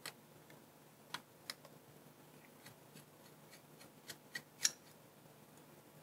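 Faint, scattered small clicks and ticks of a precision screwdriver working the tiny Torx screws out of a GoPro Hero5 Session's metal frame, about eight in all, the loudest about two-thirds of the way through.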